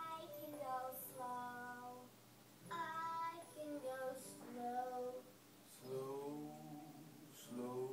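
A high voice singing a melody from a children's programme, in held phrases with short breaks between them.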